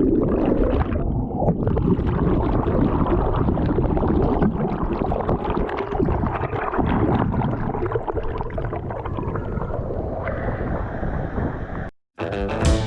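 Rushing water with wind on the microphone, a dense steady noise that cuts off suddenly near the end, followed by music with a beat.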